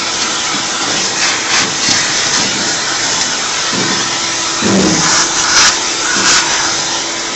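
Shop vacuum running steadily, with a few light knocks of metal tools.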